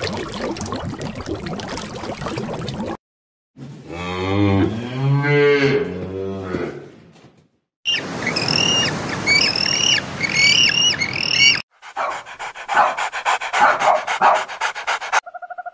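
A run of separate animal sound clips with short silent gaps between them. First comes a rough noisy stretch, then one long low moo from a cow. After that there is a series of repeated high chirps, and near the end a rapid pulsing call.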